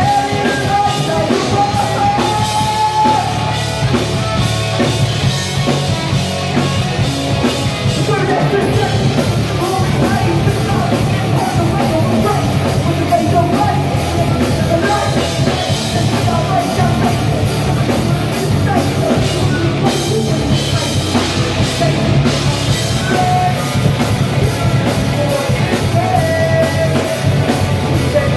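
Live rock band playing loudly: electric guitars, bass guitar and drum kit, with a singer's vocals over them.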